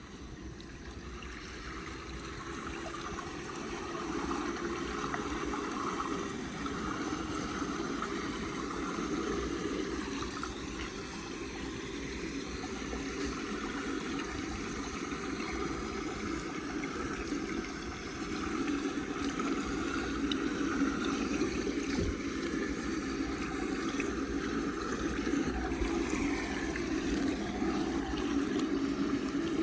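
Floodwater running and gurgling down into a street storm drain: a steady rush of water that swells over the first few seconds and then keeps going.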